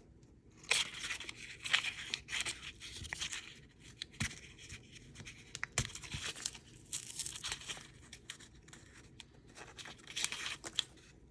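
Paper coin-roll wrapper being crinkled and torn open by hand, in irregular bursts of crackling with a few sharper clicks among them.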